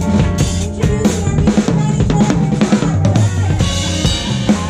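Drum kit played at close range in a busy passage: fast snare, tom and bass drum strokes with cymbals, over sustained low notes from the band's electric bass.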